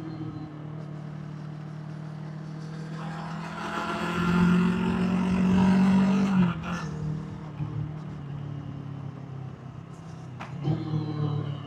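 Kawasaki Versys 650's parallel-twin engine and exhaust under way on the move. The throttle opens a few seconds in and the engine climbs and gets louder, then drops off abruptly about two-thirds of the way through. It runs lighter for a few seconds, then pulls hard again near the end.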